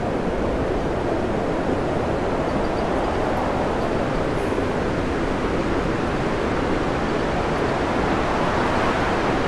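Storm wind and heavy seas breaking around a tanker's bow, heard as a steady rushing noise.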